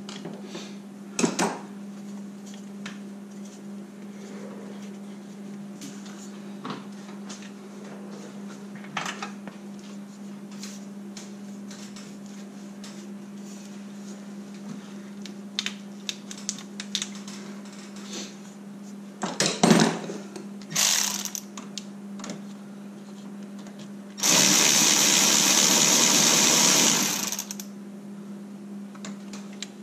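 Metal hand tools clinking and scraping in an engine bay over a steady low hum, with a louder clatter about two-thirds of the way through. Then a cordless power tool runs in one steady burst for about three seconds.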